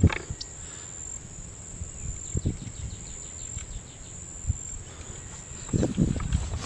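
Insects shrilling in one steady, high-pitched tone, with a few low thumps and rustles; the loudest thump comes right at the start and a cluster comes near the end.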